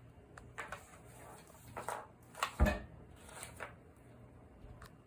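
Cat pawing and scrabbling at something under a refrigerator: scattered light scrapes and taps, with one louder thump about two and a half seconds in.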